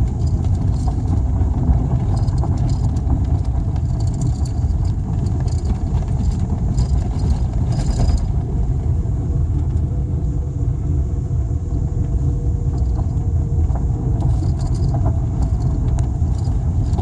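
Car driving on a gravel road, heard from inside the cabin: a steady low rumble of tyres on loose stones and engine noise, with scattered small clicks and rattles.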